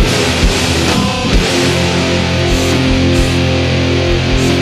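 Loud, noisy post-hardcore rock with heavy distorted electric guitars and drums, and no singing. About a second in, the guitars settle into held chords over repeated low drum hits.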